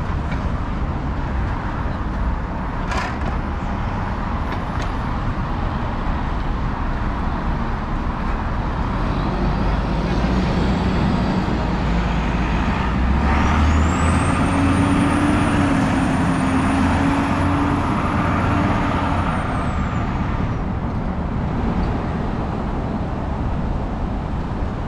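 Downtown street traffic: a steady rumble of cars and buses. A little over halfway through, a heavy vehicle passes and the traffic grows louder, with a high whine that rises, holds and then falls away.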